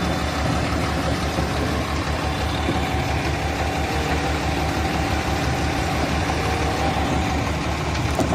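Heavy diesel engine running steadily with a fast, low throb, from a concrete mixer truck discharging concrete down its chute into an excavator's bucket.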